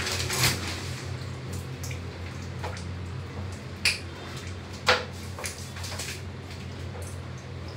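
Shower curtain pulled along its rail with a brief rustling scrape, then a few sharp knocks and drips in a small tiled shower, the two loudest about a second apart in the middle. A steady low hum runs underneath.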